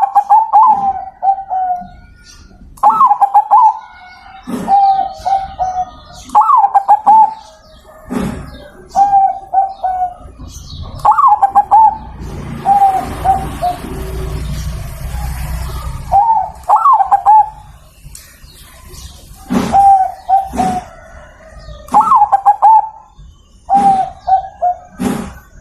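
Zebra dove (perkutut) cooing over and over: short phrases, each opening on a higher note and dropping into a quick rolling trill, about one phrase every two seconds. A few seconds of noisy hiss sit midway through.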